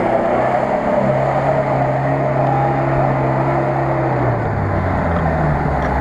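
UAZ off-roader's engine running as it drives across muddy ground, a steady engine note that drops lower a little past four seconds in.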